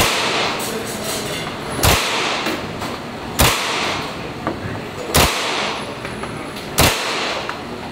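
MP5 submachine gun fired in single shots: four shots, about a second and a half apart, each ringing off the walls of the indoor range.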